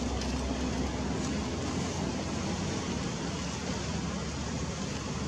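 Steady outdoor rushing noise with a low rumble that fades out about a second and a half in.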